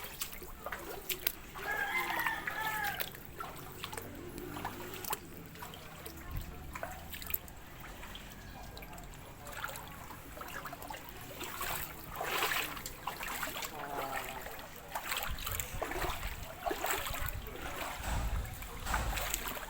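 Water trickling and splashing, with many small clicks and drips, and a brief call about two seconds in.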